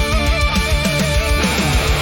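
Instrumental passage of a metal ballad: a lead electric guitar plays a melody with bends and vibrato over drums and bass.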